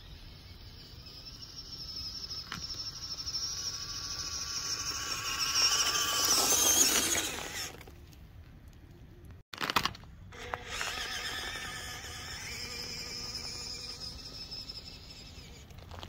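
Electric motor and gearbox of a 1:18-scale FMS Toyota FJ Cruiser RC crawler whining as it drives. The whine grows louder and climbs slightly in pitch to a peak, then stops suddenly. After a short break with a few clicks, it starts again and slowly falls in pitch and fades.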